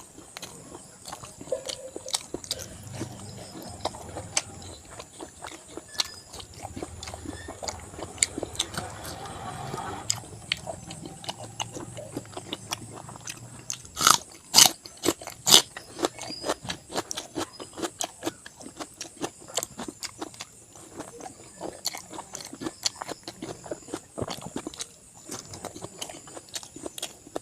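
Close-up mouth sounds of a person eating pork curry with rice: wet chewing and biting with many small smacks, and a few louder smacks about halfway through.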